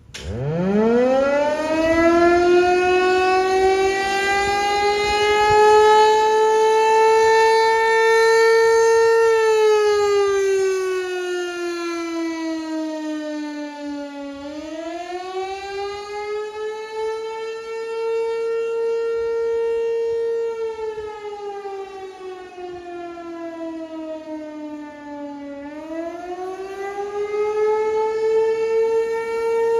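Outdoor warning siren starting up: a single tone winds up from a very low pitch to a steady high pitch over about eight seconds, then sounds a wail, its pitch sliding down and back up twice.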